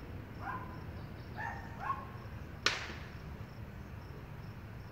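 A single sharp pop a little over halfway through, the loudest sound here, over a steady low rumble. Three short barks come before it.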